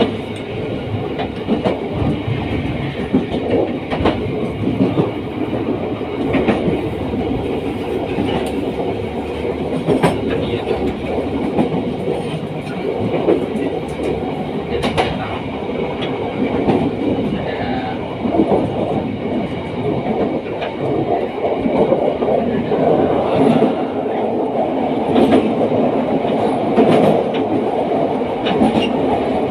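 Train running along the track: a steady rumble of steel wheels on rails, with the clack of rail joints and scattered sharp clicks.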